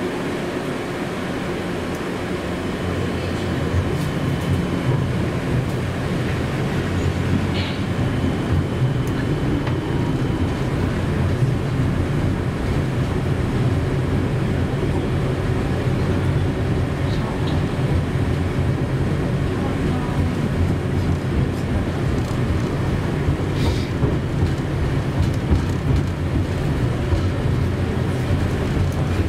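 Inside a moving KTM-31 (71-631) tram: steady running rumble and hum of the traction motors and wheels on the rails, getting a little louder a few seconds in as it picks up speed.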